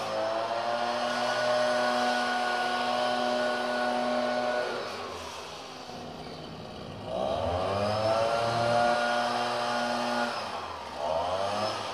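Backpack leaf blower's two-stroke engine running at full throttle, its pitch dropping to idle about five seconds in, revving back up about two seconds later, then easing off near ten seconds with one short rev just before the end.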